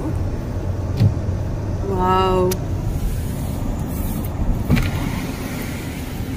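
Cabin noise of a car driving on a wet road: a steady tyre and engine rumble, with two light knocks about a second and five seconds in.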